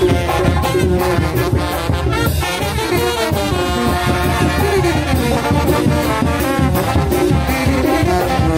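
Oaxacan brass band (banda de viento) playing a lively tune, massed horns over a steady beat.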